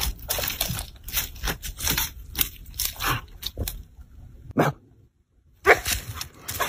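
A dog moving about on grass strewn with dry leaves: crunching and scuffing in quick, irregular bursts, with a brief pause about five seconds in.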